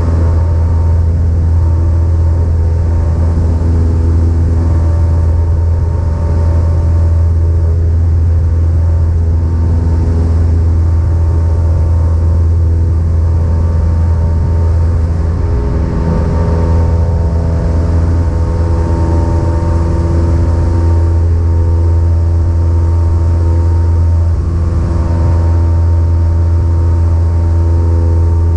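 Cessna 172's piston engine and propeller running at a steady power setting, a loud, even drone.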